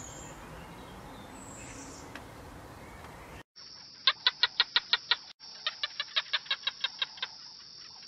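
Faint outdoor background with a few distant bird chirps, then after a cut two quick runs of sharp, repeated clucking calls, about six a second, with a short pause between the runs.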